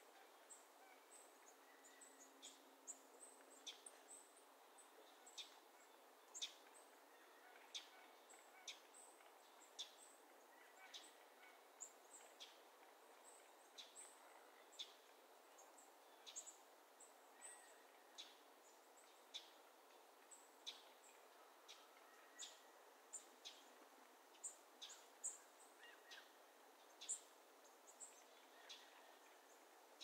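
Faint meadow bird calls: many short, sharp chip notes, irregular, about one or two a second, over a soft hiss of open-air ambience.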